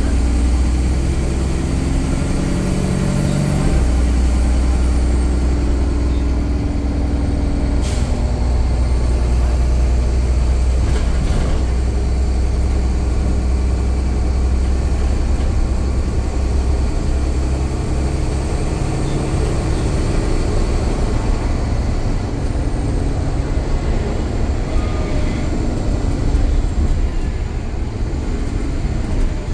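Alexander Dennis Enviro500 double-decker bus running, its diesel engine a steady low drone whose note shifts several times. There is a sharp click about eight seconds in.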